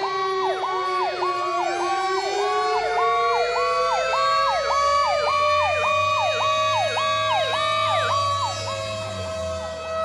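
Fire apparatus sirens: an electronic siren cycling fast, about twice a second, over a second siren tone that sags and then climbs slowly in pitch.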